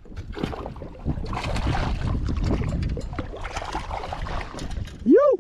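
Water splashing and wind against the boat, with knocks and clatter as a hooked Atlantic bonito is landed over the rail by hand. Near the end comes one short whooping voice that rises and falls in pitch.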